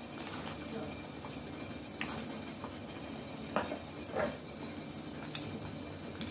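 Metal spoon tapping and scraping against a stainless steel bowl and plate as dry flour is spooned in: a few light clinks, the sharpest near the end.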